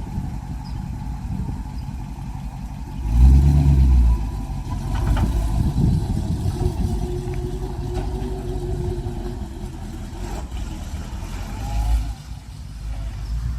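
1956 Ford F-250 truck's engine running while the truck is driven, with a loud surge in engine noise about three seconds in as it is revved.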